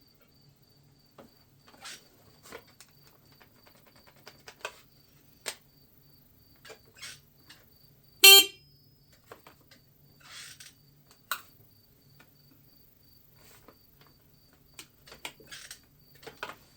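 Scattered clicks and rattles of hands working on scooter wiring, with one short electric horn beep from the 50cc scooter about eight seconds in. A faint, steady, pulsing high chirp like a cricket runs underneath.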